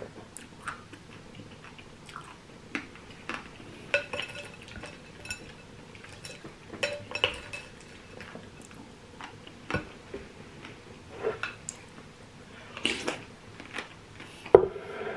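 A spoon clinking and scraping in a bowl of berries, coconut water and ice cubes, in scattered irregular taps, some with a short ring. A louder knock comes near the end.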